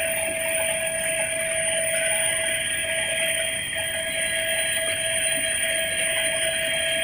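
Helicopter cabin noise in level flight, heard from inside the cockpit: the turbine engine and rotor drive whine on a few unchanging high tones over a constant rushing noise.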